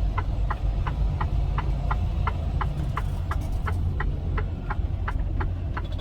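Semi-truck diesel engine running at low speed, heard from inside the cab, with the turn-signal indicator clicking steadily at about three clicks a second.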